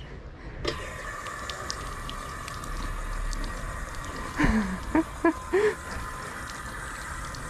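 Water running steadily from a public drinking fountain as someone drinks from it, the flow turned on under a second in. A few short voice sounds break in around the middle.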